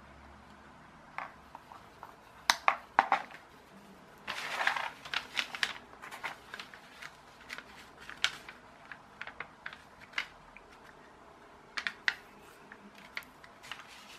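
Small handling noises at a soldering bench: a few sharp clicks and taps of small tools being put down on a hardboard board about two to three seconds in, then a brief rustle. Scattered light ticks and scratches follow as a pencil marks the paper instruction sheet.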